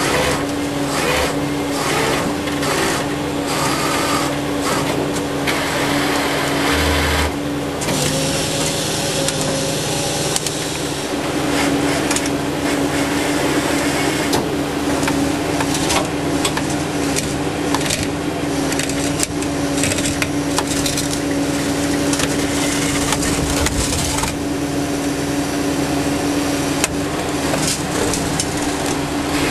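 Tow truck's engine running steadily with a constant hum whose pitch shifts slightly about eight seconds in, over intermittent scraping and creaking.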